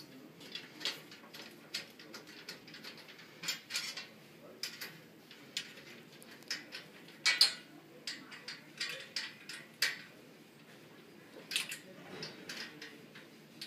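Irregular metallic clicks, clinks and scrapes as a hex key turns a screw fastening a curved metal shelf to the upright of a metal display stand, with one louder clink about halfway through.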